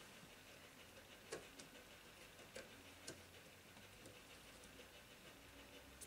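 Near silence broken by a handful of faint clicks and taps as a replacement carbon brush is worked into place on a washing machine motor.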